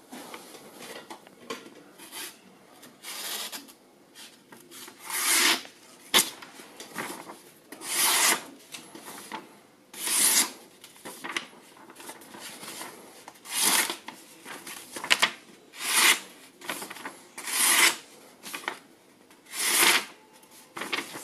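Freshly resharpened Bahco Companion knife slicing through hand-held sheets of paper in a sharpness test: a rasping swish with each cut, about every two seconds, between softer rustles of the paper being handled.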